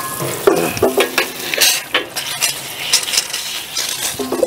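Garden-hose spray nozzle hissing as it rinses a brake caliper in a metal pot, with the caliper clinking and scraping against the pot again and again.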